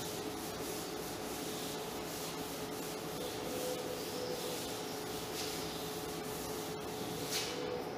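Chalkboard eraser rubbing steadily across a chalkboard, wiping off chalk writing.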